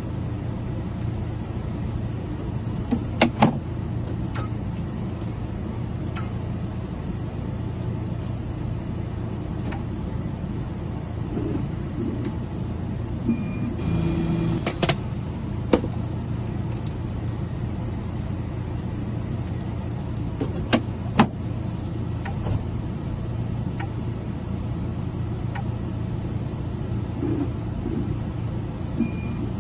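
Freshly cut replacement keys for a 2006 Chevy Express being tried in its lock: a few sharp clicks and taps over a steady low hum, with a short electronic tone midway and another near the end.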